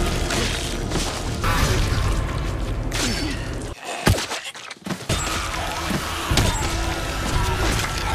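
TV fight-scene audio of walkers being killed: a dense run of hits and thuds with music under it. About four seconds in it drops out briefly around one sharp hit, then resumes.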